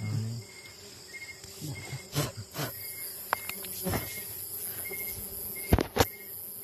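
An insect, cricket-like, chirping steadily in short, evenly spaced pulses, about one and a half a second, over scrapes and knocks of hands working in loose soil; two sharp knocks close together near the end are the loudest sounds.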